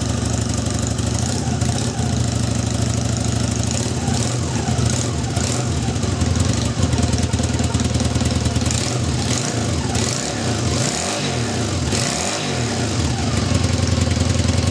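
Honda CB250N's four-stroke parallel-twin engine running on a bit of choke just after starting, its ignition now firing from the freshly rewound stator source coils. The engine speed rises and falls in a few throttle blips about nine to thirteen seconds in.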